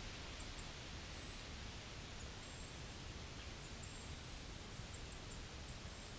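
Steady outdoor background noise: wind buffeting the microphone as a low rumble, with a faint, thin, steady high whine above it.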